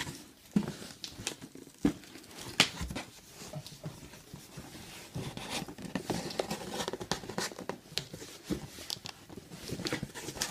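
Cardboard rustling and scraping, with scattered knocks and clicks, as a trading-card box is worked out of its tightly packed cardboard case.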